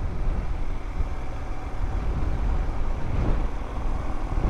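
Motorcycle ridden at road speed: steady engine and wind noise.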